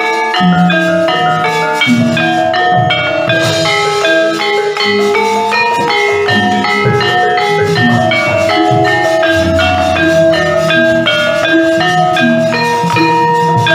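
Gamelan music: bronze metallophones play a quick, dense run of ringing notes over lower strokes, without a pause.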